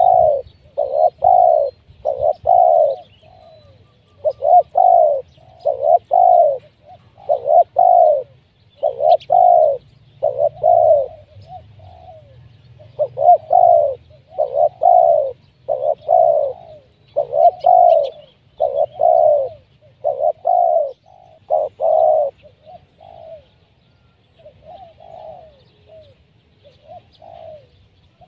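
Spotted dove (tekukur) decoy cooing over and over on the ground, in steady runs of low coos. From about 23 seconds in, the coos turn softer and sparser.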